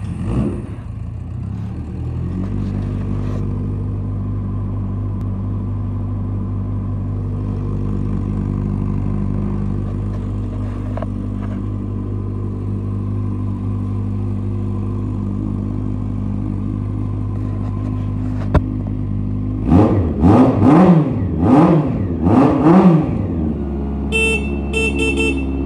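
A 1991 Honda CB750 Nighthawk's air-cooled inline-four engine idling steadily, then blipped several times in quick succession about 20 seconds in, pitch rising and falling with each blip, before settling back to idle. Near the end the motorcycle's horn sounds briefly twice.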